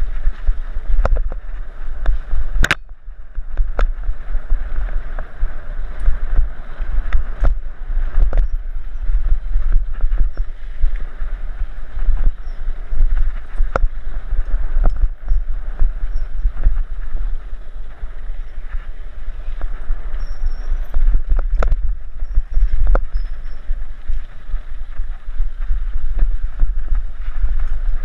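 Mountain bike riding a dirt singletrack, heard from a helmet-mounted camera: a steady low rumble of wind on the microphone and tyres on the loose dirt, with scattered sharp clicks and knocks as the bike rattles over bumps, one louder knock about three seconds in.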